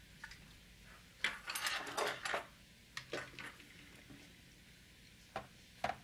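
Hand tools and hard plastic robot-vacuum parts clattering on a workbench as they are moved and set down: a cluster of light knocks and rattles about a second in, a few more a little later, then two single knocks near the end.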